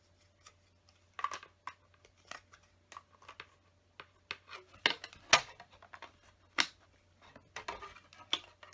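Plastic LEGO bricks clicking and clattering as pieces are picked out and pressed together: scattered sharp clicks and short rattles, irregularly spaced, with a loud cluster about five seconds in.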